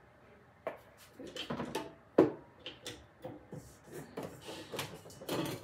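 Kitchenware being handled on a counter: an irregular run of short knocks and clinks, the sharpest about two seconds in.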